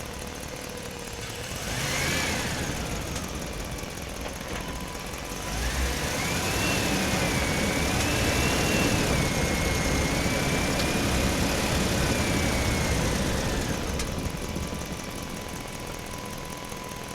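Small motor of a miniature model machine whining under load: a brief rise and fall about two seconds in, then a longer, louder run from about five to fourteen seconds with a wavering pitch, over a steady low hum.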